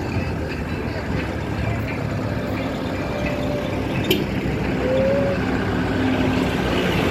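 Steady motor vehicle running noise, with a single sharp click about four seconds in.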